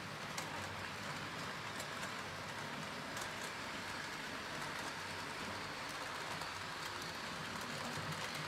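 Model trains running on the layout's track: a steady whir of wheels and motors, with scattered faint clicks.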